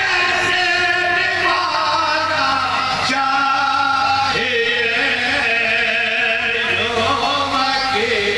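Men chanting a marsiya, an Urdu elegy: a lead reciter with several supporting voices singing along in long, held melodic lines.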